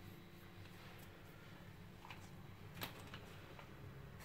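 Near silence: low room hum with a few faint clicks about two to three seconds in.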